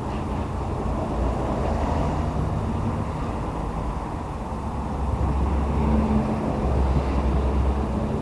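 Steady low rumble of road traffic, swelling a little in the second half.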